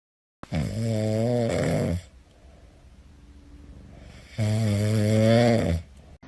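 Two long snores about four seconds apart, each lasting about a second and a half, with a wavering rasp.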